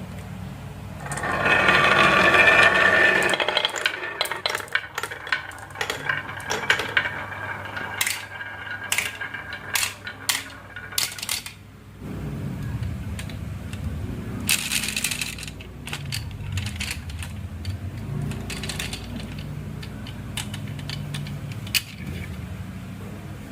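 Marbles running down a HABA wooden marble run: a loud rattling rush of many marbles about a second in, then a long stretch of sharp clacks as they strike the wooden track and each other. From about halfway a low, wavering hum runs under a few last scattered clicks.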